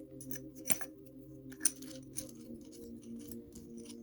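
Small metal parts of a pocket hammer multitool with interchangeable screwdriver bits clicking and tapping as they are handled and fitted together, with a sharp click about a second and a half in, over a steady low hum.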